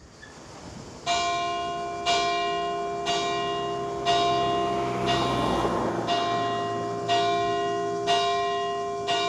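Church bell of San Michele degli Scalzi tolling, struck about once a second from about a second in, each stroke ringing on into the next.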